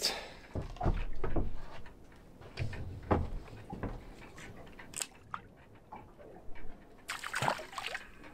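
Water sloshing around a small boat, with scattered knocks and clicks, busier in the first two seconds, and a short rushing burst about seven seconds in.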